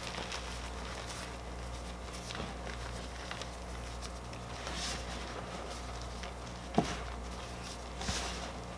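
Reformed gym chalk crushed and crumbled between the fingers into loose chalk powder: soft dry crunching and crumbling, with one sharper crack about two-thirds of the way through.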